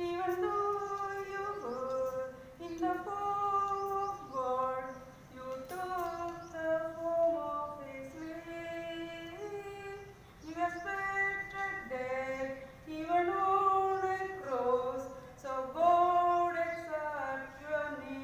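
A woman singing a melody unaccompanied, holding each note and stepping up and down in pitch, with short pauses between phrases.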